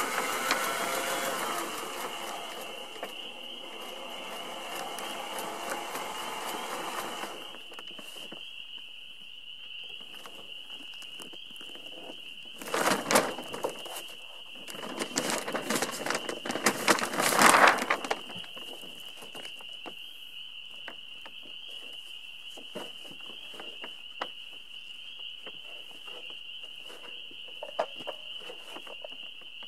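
Windsurf sail's monofilm and Dacron panels crinkling and rustling as they are handled, with two louder crackly spells a little before and after the middle. A steady high-pitched tone sits under it throughout.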